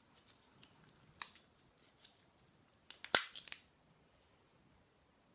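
Small clicks and plastic handling noises as a cleansing oil bottle is opened, with one sharp snap about three seconds in as the cap pops open.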